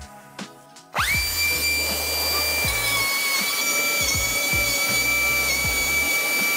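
Euroboor BM45AIR palm-sized pneumatic bevelling machine, fitted with radius cutting plates, rounding over the edge of a steel plate. About a second in it spins up quickly to a steady high whine with a hiss of air, its pitch dipping slightly a few times as it cuts.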